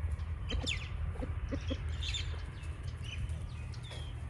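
Chickens clucking softly as they forage, with short low clucks and high chirps that fall in pitch, over a steady low rumble.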